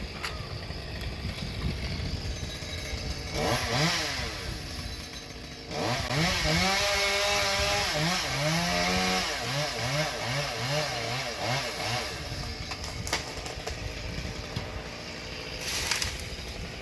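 A chainsaw revving up and down during tree cutting. There is one short rev about a third of the way in, then a louder stretch of repeated revs rising and falling in pitch, and a low steady rumble between them.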